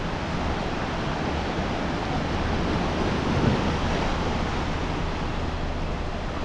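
Sea waves washing onto the shore, a steady rushing surf that swells a little midway, with wind rumbling on the microphone.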